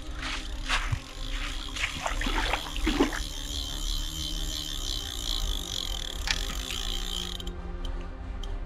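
Carp reel's spool ratchet ticking fast and steadily as a running fish takes line, stopping abruptly near the end, over a few knocks of handling gear at the start and a constant low rumble.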